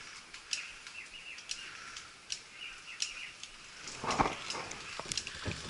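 Outdoor ambience with repeated short, sharp high chirps or clicks about once or twice a second, and a brief, louder rustle about four seconds in.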